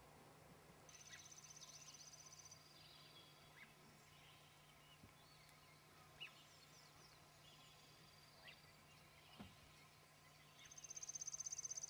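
Faint songbirds singing: a high, rapid trill about a second in and another near the end, each dropping to a slightly lower trill, with scattered short chirps between them.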